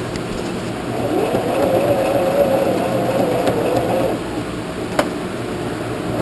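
Sewing machine motor running a stitching burst of about three seconds: its hum speeds up, holds steady, then slows to a stop. A single sharp click follows.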